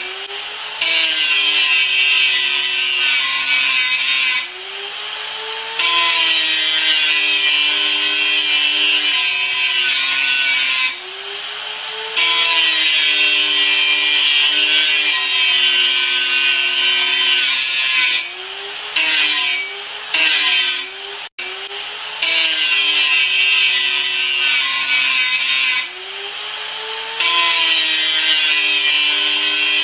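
Angle grinder running, its disc pressed into the work in long grinding passes of four to six seconds with a harsh, loud hiss, plus two brief touches around twenty seconds in. In the short breaks between passes the motor whine rises as the unloaded disc speeds back up, and drops slightly again under load.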